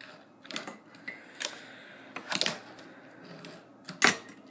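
Fingerboard clacking against the table and a metal rail: a few sharp clicks and taps of the small board and trucks, spaced about a second apart, the loudest near the end.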